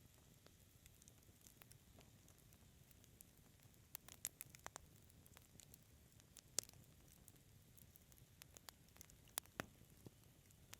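Wood fire crackling quietly: a soft low hiss with scattered sharp pops and snaps, a quick run of them about four seconds in and single louder pops a little past halfway and near the end.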